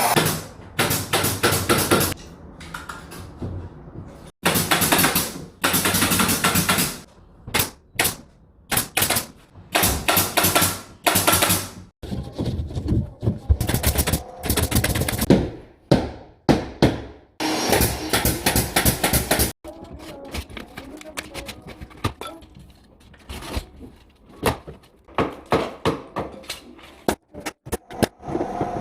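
Interior carpentry work on drywall and ceiling framing: short bursts of power-tool noise alternating with runs of sharp clicks and knocks, broken by abrupt cuts between takes.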